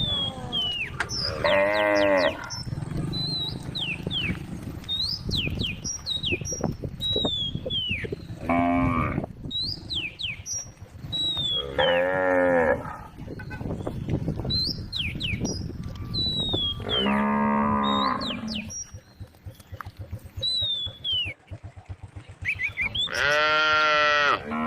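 Cows mooing: five separate moos a few seconds apart, the last one long and loud. Short high chirps come and go between them.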